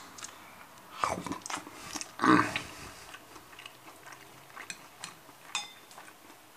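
A person eating: chewing and mouth noises with two short vocal sounds about one and two seconds in, then a few light clicks of a black plastic fork against a ceramic plate.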